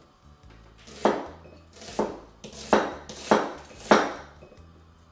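Cleaver chopping an onion on a round wooden cutting board: five knife strikes on the board, coming a little faster toward the end.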